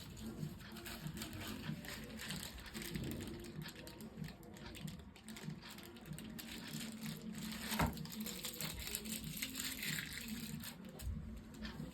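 Handling noises of a laptop and its packaging: light rustling and tapping, with one sharp click about eight seconds in.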